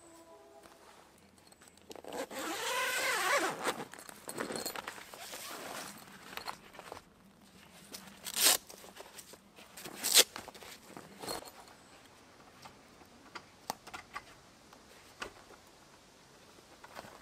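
A zip on a fabric cover is pulled open in one long rasp that rises in pitch, followed by scattered handling noises. About four seconds later come two short, sharp rips a second and a half apart, from unfastening the straps of a rolled vehicle awning bag.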